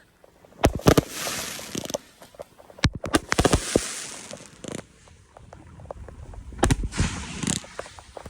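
Fireworks going off: a series of sharp bangs about a second apart at first, then more spread out, several followed by a crackling hiss.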